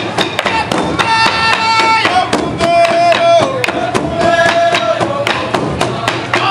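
Traditional Burundian drumming: large wooden hide-headed drums beaten with wooden sticks in a steady, fast beat of about four to five strokes a second. Voices call out in long held notes over the drums.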